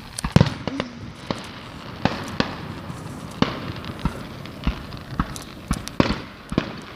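Fireworks going off at a distance: a string of sharp pops and bangs at an uneven rate, the loudest just under half a second in.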